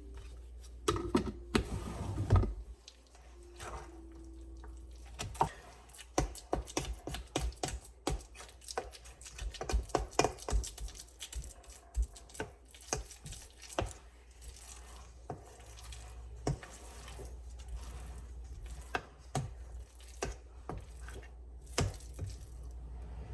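A utensil stirring chicken salad in a bowl: irregular clicks and knocks against the bowl, busiest in the middle, over a steady low hum.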